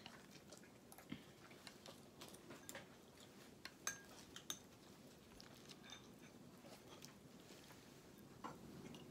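Near silence with a few faint clicks of a metal spoon against a small ceramic bowl, and quiet eating sounds.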